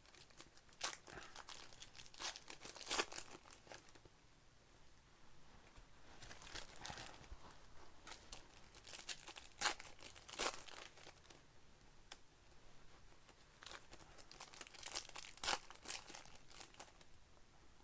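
Plastic trading-card pack wrappers being torn open and crinkled by hand, in irregular bursts of crackling with short pauses between.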